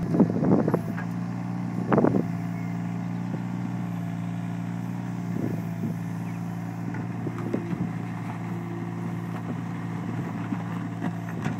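Volvo mini excavator's diesel engine running steadily, with loud clanking bursts in the first second and again at about two seconds and a few lighter knocks later.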